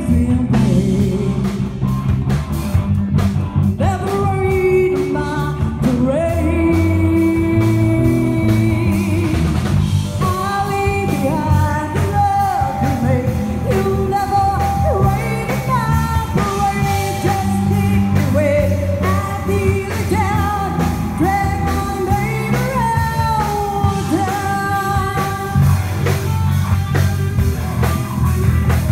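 A rock band playing live: electric guitars, bass and drum kit, with a bending, gliding melody line carried over a steady beat.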